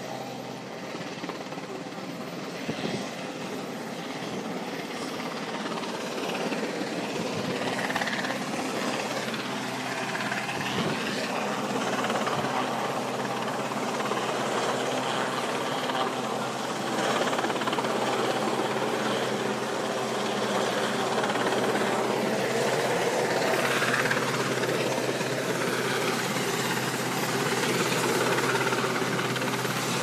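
Westland Sea King search-and-rescue helicopter approaching, its rotor and engine noise growing steadily louder.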